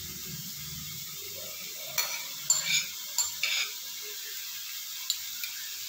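Raw prawns being tipped from a bowl into a frying pan of hot onion-tomato masala, which sizzles steadily. A utensil clinks and scrapes against the bowl and pan in a quick run of sharp clinks about two to four seconds in, with two lighter ticks near the end.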